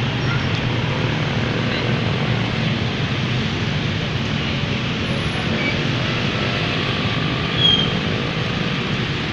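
Steady street traffic noise at a level crossing, with a brief high squeak about three-quarters of the way through.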